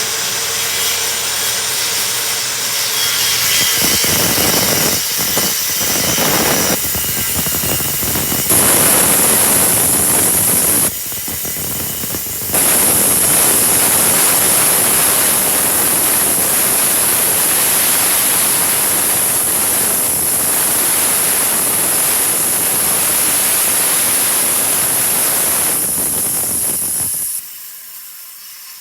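Power saw cutting through wooden kitchen cabinetry, running steadily with a high whine. It drops off briefly about eleven seconds in, then picks up again and winds down near the end.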